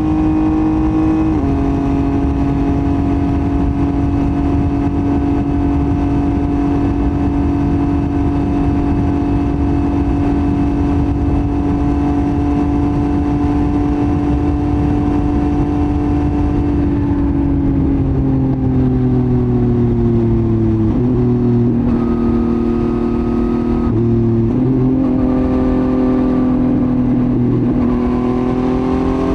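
Yamaha MT-09 three-cylinder engine through a Roadsitalia titanium full exhaust, running at steady revs under way. About two-thirds of the way in the pitch slides down, shifts in a few abrupt steps, then rises again near the end.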